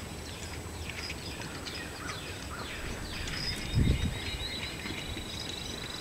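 Songbirds singing: a run of quick, high falling notes, then a fast steady high trill from about three seconds in. A single dull low thump, the loudest sound, comes near four seconds.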